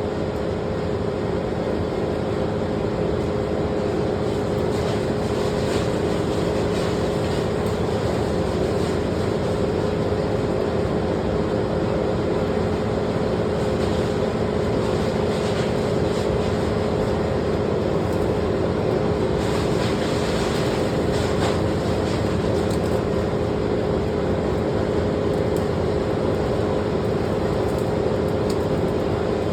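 An engine running steadily at one speed, with a constant hum.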